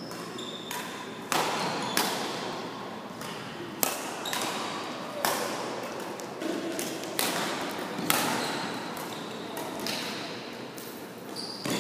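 Badminton rackets striking a shuttlecock in a rally, sharp hits about once a second, each echoing through the large gym hall.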